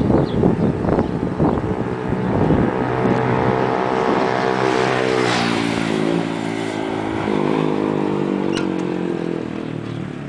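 A motor vehicle's engine running, its pitch falling about five seconds in as it slows, then holding steady lower. Irregular clattering over the first couple of seconds.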